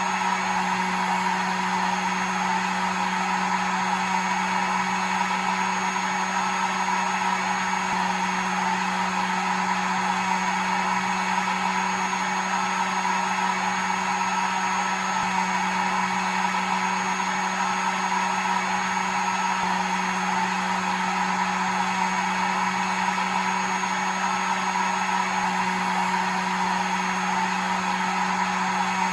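Hair dryer running steadily: a constant rush of air over an even, low motor hum.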